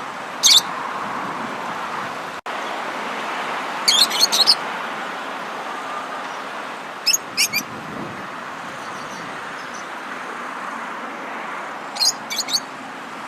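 A songbird chirping in short, quick runs of high notes, one run every three to four seconds, over a steady background hiss. The hiss drops out for an instant a little over two seconds in.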